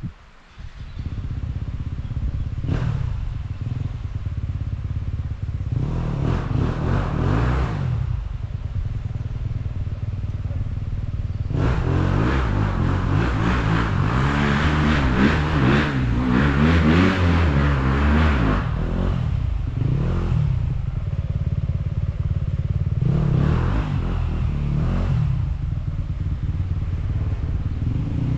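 Dirt bike engine running with the bike standing still, revved in repeated bursts. The longest and loudest burst runs through the middle, with shorter ones before and after.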